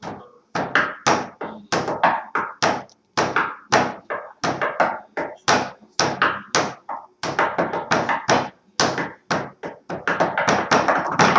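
Hand drumming on a wooden tabletop: a steady run of sharp taps and thunks about three a second, getting faster and denser near the end.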